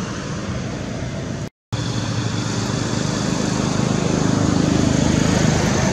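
A motor running steadily with a low hum, growing louder in the second half; the sound cuts out briefly about a second and a half in.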